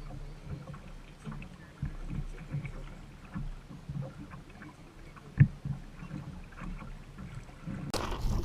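A small boat on the water: a low rumble with scattered light knocks, one sharp knock about halfway through, and a rush of noise near the end.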